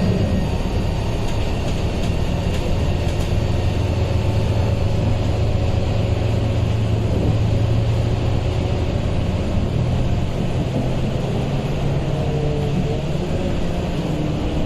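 Scania K230UB city bus running, a steady low engine drone with road noise over it. A faint whine comes and goes near the end.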